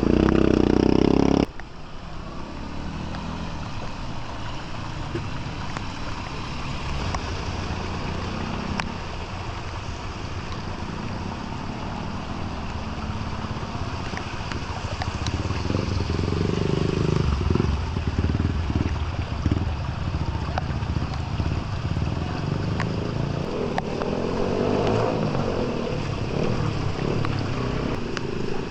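A loud low sound for the first second and a half that cuts off abruptly, then a steady outdoor wash of heavy rain and running water. Low rumbling swells over it around the middle and again near the end.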